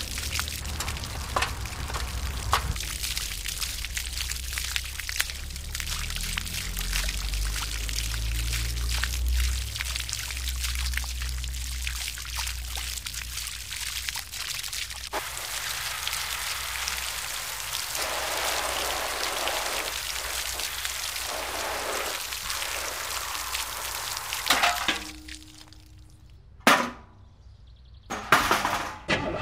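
A stream of water from a toy hand water pump's nozzle pouring and splashing onto a mud-covered toy car, steady until it stops about 25 seconds in. A few sharp knocks follow near the end.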